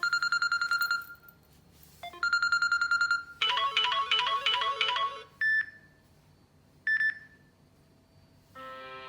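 Stock ringtones of a Samsung Galaxy J3 (2016) played in turn: a fast trilling electronic ring sounds twice, then a quick run of melodic notes, two short single beeps, and a sustained electronic chord that starts near the end.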